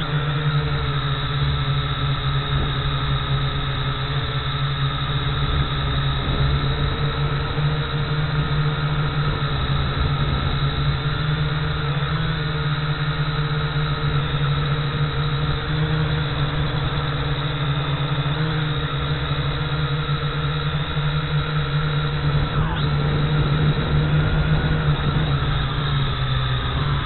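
A drone's electric motors and propellers running, picked up by the camera mounted on the drone, as a loud, steady whirring hum with slight drifts in pitch as it climbs.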